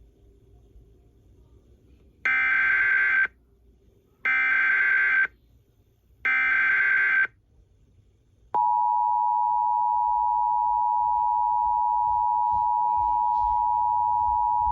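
Emergency Alert System header: three one-second bursts of SAME data tones, a second apart, followed about eight and a half seconds in by the steady two-tone attention signal. Together they announce an incoming alert, here a severe thunderstorm warning.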